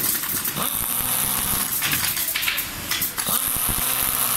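Pneumatic screwdriver running with a hiss of air, turning the screws of a recliner's power switch plate. It runs briefly at the start and again from about three seconds in.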